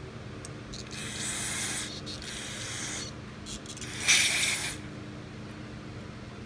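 Aerosol carburetor cleaner sprayed through an extension straw into a carburetor: a spray of about two seconds starting about a second in, then a shorter, louder blast about four seconds in.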